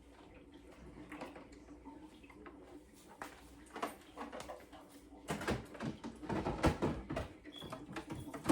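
A refrigerator being opened and a plastic drink-can tray being handled and set inside. It is mostly quiet at first, then there is a quick run of knocks and clatter in the second half.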